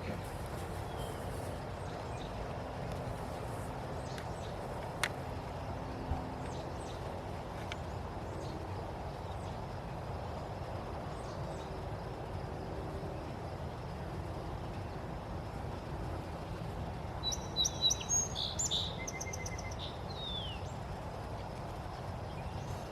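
Steady outdoor background noise with two soft clicks early on, and a bird calling a short burst of high chirps and a quick trill about three-quarters of the way through.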